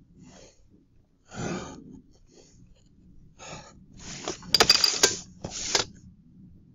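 Pencil strokes scratching on paper as drawn lines are darkened in, then a plastic set square sliding across the paper and being set down, with a few sharp clicks about four and a half seconds in.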